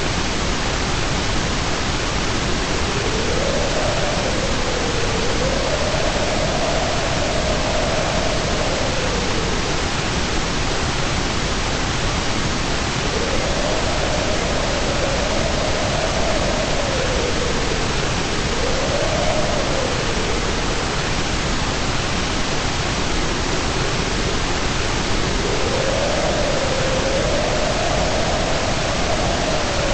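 Steady white-noise hiss with even strength from the bass up to the treble. A faint tone inside it slowly rises and falls in pitch over several seconds at a time.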